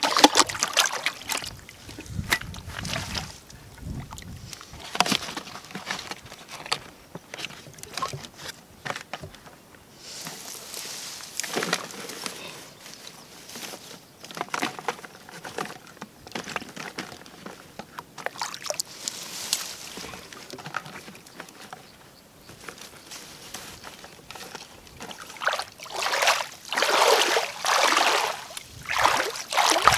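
Shallow muddy water sloshing and splashing as someone wades and works with his hands in it, with louder splashing near the end.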